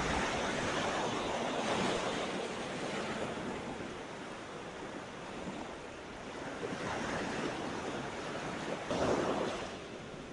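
Surf washing onto a sandy beach, waves breaking in swells, with wind on the microphone; one wave breaks louder near the end.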